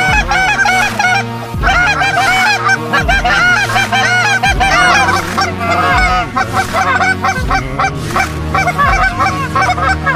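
Canada goose calling: rapid, overlapping honks and clucks, with a hunter blowing a goose call among them. Underneath runs background music with a slow, steady low beat.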